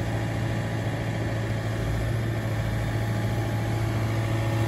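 Mini excavator's diesel engine running steadily with a constant low hum while its arm holds a lifted block of soil.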